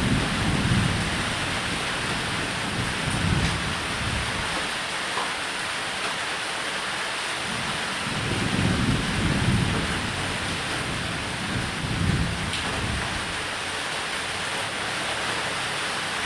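Steady heavy rain hissing, with thunder rumbling low and rolling several times through it.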